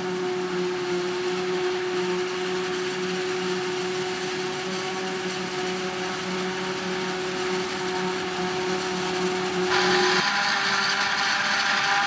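Claas Jaguar 840 forage harvester chopping standing maize, a steady machine sound with a constant whine, mixed with the tractor running alongside. About ten seconds in it becomes louder and hissier.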